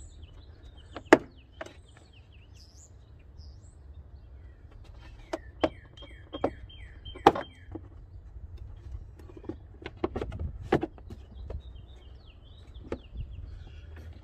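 A dozen or so sharp plastic clicks and knocks as the car's air-filter housing and its clamps are handled and pushed back into place, the loudest about a second in and about seven seconds in. Birds chirp in the background.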